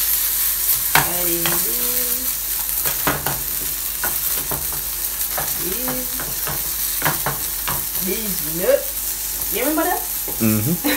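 Food frying in a pan with a steady sizzle, with scattered soft clicks and knocks from handling at the counter.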